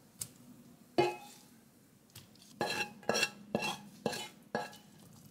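Wooden spoon knocking against a frying pan and scraping scrambled eggs out onto toddler plates: one knock about a second in, then five quick scrapes about half a second apart.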